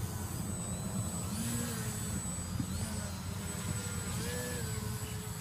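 Small RC aerobatic plane's motor and propeller whining as it hangs nose-up in a hover. The pitch rises and falls several times as the throttle is worked, over a steady low rumble.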